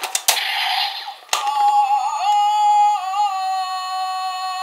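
Two sharp plastic clicks and a short electronic burst from a Zyuoh Changer transformation-phone toy. From about a second in, its small speaker plays a long, held, synthesized singing tone with slight pitch wobbles.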